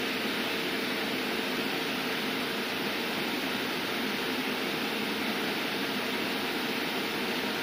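Cooling fan of a 12 kW EV charger running steadily while the charger ramps up its output under load toward 30 amps. It is an even rush of air with a faint steady hum.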